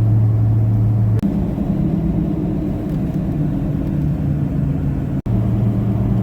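Steady low engine and road drone heard from inside a moving tour vehicle. The hum shifts to a higher pitch about a second in and drops back near the end, and each shift comes with an instant's dropout in the sound.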